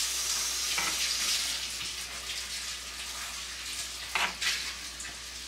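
Sliced bell peppers, onion and garlic sizzling in a frying pan, a steady hiss that eases off slightly, with a few light knife taps on a wooden cutting board as an onion is sliced, about a second in and again about four seconds in.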